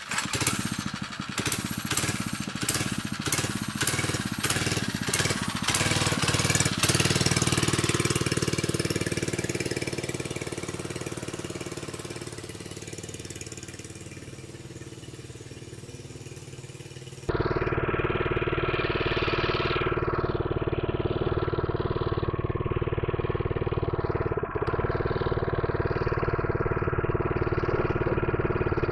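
Small 79cc single-cylinder four-stroke engine on a mini bike running as the bike rides off, pulsing unevenly for the first several seconds and then fading away. About two-thirds of the way in it is suddenly loud and close, running steadily with a brief rise in pitch. It is barely coming off idle with the choke half closed, a sign of the carburetor trouble it has.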